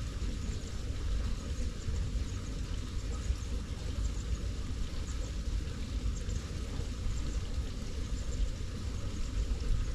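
Wind buffeting the microphone: a steady, gusty low rumble.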